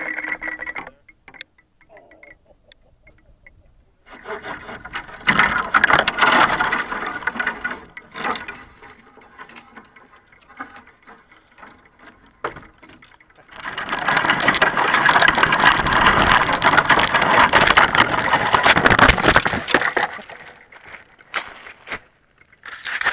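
Rustling and crunching of footsteps through dry grass and twigs, coming and going in irregular stretches with a quiet start, picked up by the microphone of a crashed quadcopter's onboard camera lying on the ground. The quad's motors are silent.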